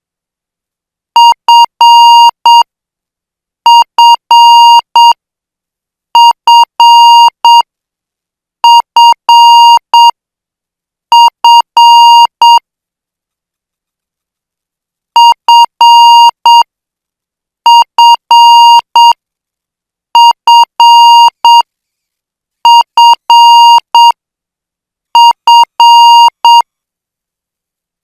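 Morse code training tone at 8 words per minute: a steady beep keyed into dots and dashes, one character at a time. There are ten characters about 2.5 s apart, five, then a longer pause, then five more.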